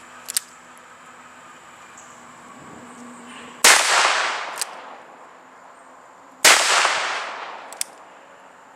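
Two shots from a Ruger Super Blackhawk .44 Magnum revolver firing heavy 250-grain hand loads, about three seconds apart, each a sharp loud crack with a long echo trailing off. Fainter short sharp clicks come just before the first shot and about a second after each shot.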